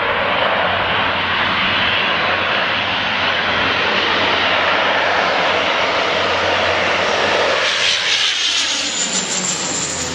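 Canadair water bombers' engines running loud and steady as the planes fly low overhead. About eight seconds in the sound takes on a swirling, sweeping tone as the nearest plane passes close by.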